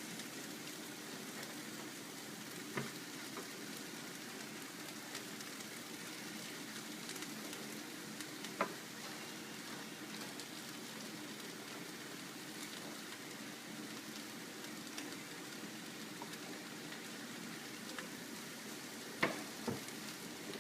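Bell peppers, onions and zucchini frying in a pan: a steady sizzle, with a few sharp clicks scattered through it.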